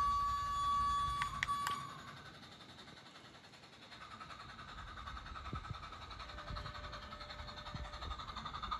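Garden-railway model locomotive's whistle blowing once, a steady high note lasting under two seconds, over the low rumble of a train running on the track, which then carries on more quietly.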